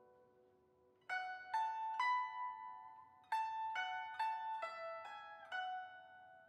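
Slow plucked-string music. A note fades out at the start, then about a second in comes a calm run of about nine single plucked notes, each ringing and dying away.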